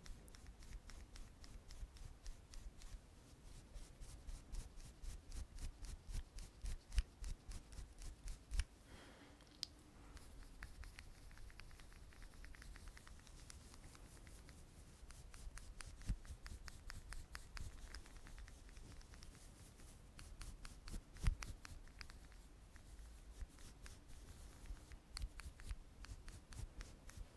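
Close-up rubbing and brushing against the microphone, a dense run of tiny crackles and clicks with an occasional louder tap.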